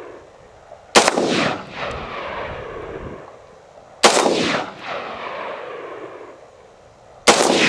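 Three single shots from a Bushmaster XM15 AR-15 rifle, about three seconds apart. Each sharp crack is followed by a long echo dying away.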